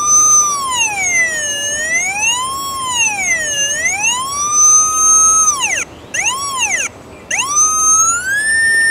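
Pipehorn utility locator receiver's tone: a steady whistle that slides slowly down and up in pitch several times, dips sharply twice around the middle, then climbs and holds at a higher pitch near the end. The tone tracks the signal as the transmitter is moved to line up directly over the buried line.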